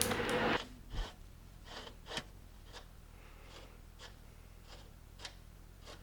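A brief rustle, then a few faint scattered clicks and taps of small parts being handled.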